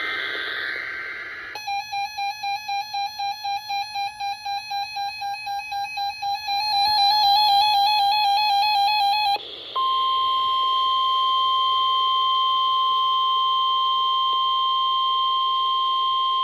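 Weather radio alert test tones: a short two-tone data burst, then a warbling, pulsing alert tone for about eight seconds. After a brief break, a steady NOAA Weather Radio 1050 Hz warning alarm tone holds to the end.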